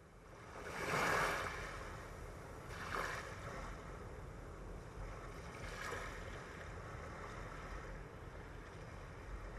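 Sea waves washing in, fading up from silence: three swells of surf, the loudest about a second in and smaller ones near three and six seconds, over a steady low rumble of open water.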